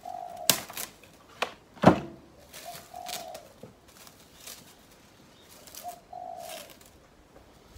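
Plastic cling film pulled off the roll, torn on the box's cutter and smoothed onto a board: crinkles and sharp snaps in the first couple of seconds, the loudest about two seconds in. A bird coos three times in the background, a few seconds apart.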